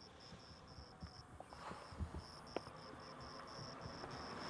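Faint insects chirping in a steady pulsing rhythm, about four chirps a second, with a short break in the chirping early on.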